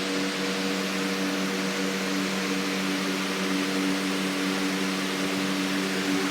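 Lasko box fan running steadily: an even rush of moving air over a constant low motor hum.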